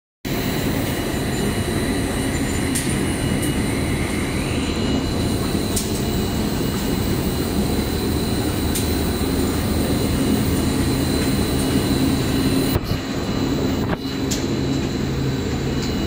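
Rubber hose production line machinery running steadily: a dense low mechanical hum with a steady high tone over it, occasional sharp clicks, and a faint whine that rises briefly about four seconds in.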